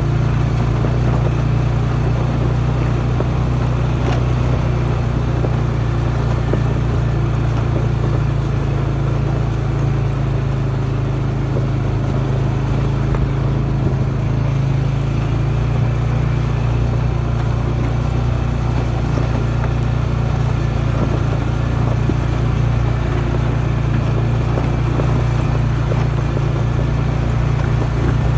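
An off-road vehicle's engine running steadily at low, even revs while heading downhill, a constant low drone with almost no change in pitch.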